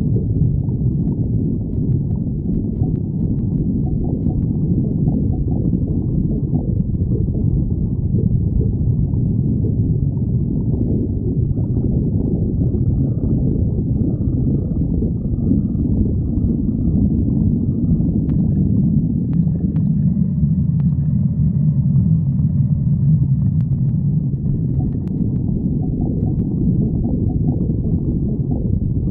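Human stomach growling with hunger: a continuous low rumbling gurgle, deepening somewhat about two-thirds of the way in.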